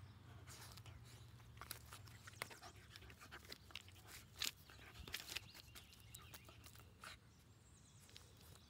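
Faint, irregular clicks and scrapes of a basket cage muzzle knocking and rubbing against a piece of wood as a young Labrador mix paws at it and tries to chew it through the muzzle.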